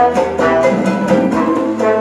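Salsa dance music played by a DJ through the club's sound system, with a steady beat.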